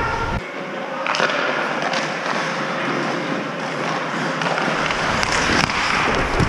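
Ice hockey skates scraping and carving on the ice, with a few sharp clacks of sticks and puck.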